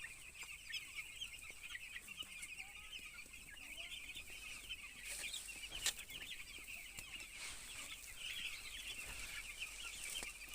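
A crowded flock of young chicks peeping continuously, many short high calls overlapping, with one sharp click about six seconds in.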